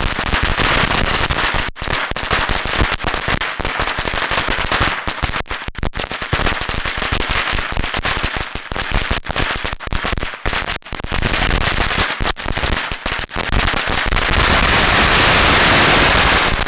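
A long strip of Black Cat firecrackers with salutes mixed in, going off in a continuous rapid crackle of bangs. Over the last few seconds the bangs pile up into a denser, louder, unbroken barrage.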